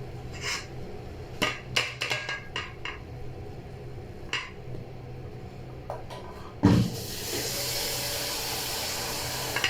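A wooden cooking stick knocking and scraping against a metal pot while ugali is turned out onto a plate: a run of sharp, uneven knocks and clatters. Near the end comes a loud thump, then a steady high hiss.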